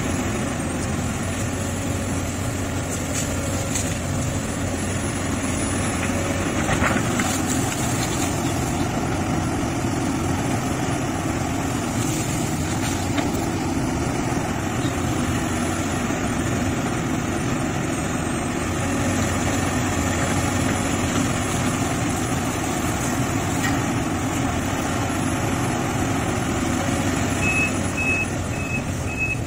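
Sumitomo SH350HD crawler excavator's diesel engine running steadily under load while it clears brush, with a few sharp snaps and knocks. Near the end its travel alarm starts beeping, about two or three beeps a second.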